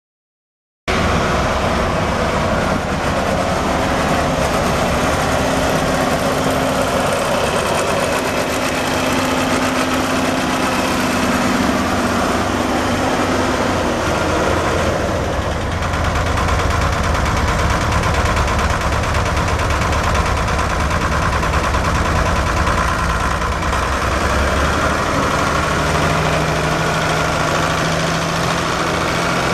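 Ford TW-10 tractor's six-cylinder diesel engine running steadily, cutting in abruptly about a second in.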